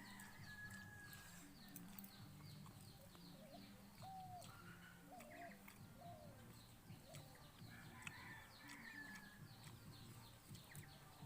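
Faint farmyard chickens: a hen clucks about five times in the middle, over continual rapid, high, falling chirps from small birds or chicks. A low steady hum runs underneath.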